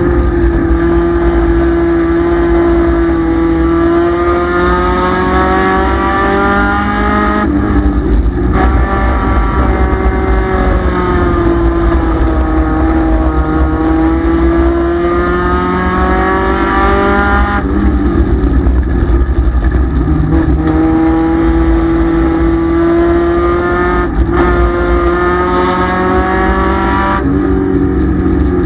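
Race car engine heard loud from inside the cockpit at racing speed, its pitch climbing and falling several times as it accelerates and backs off around the oval, with a few short dips where the throttle is lifted.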